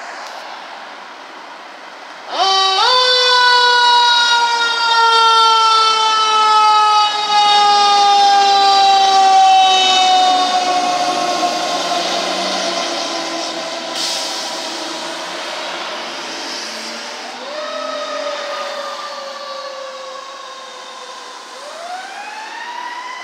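Street traffic, then a fire engine's siren that rises sharply about two seconds in and falls slowly in pitch for about eight seconds. It rises and falls again more briefly later, and winds up once more near the end.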